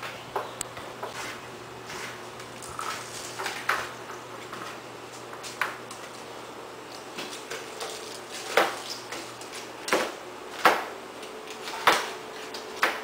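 Kitchen knives knocking on cutting boards as vegetables are cut by hand, in scattered, irregular single strokes, with a few louder knocks in the second half.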